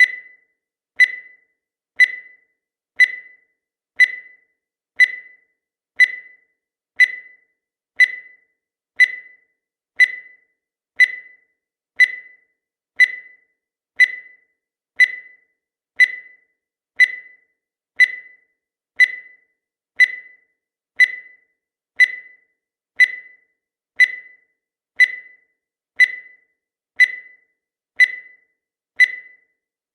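Countdown timer sound effect: a short, high beep once every second, each dying away quickly.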